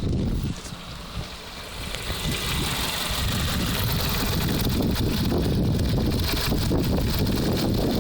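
Renault Clio III 1.6 16V four-cylinder petrol engine running warm, its revs rising over about two seconds and then held steady. This is the noise that shows when warm above 1500 rpm, which the owner suspects comes from the cam phaser (variable valve timing) pulley.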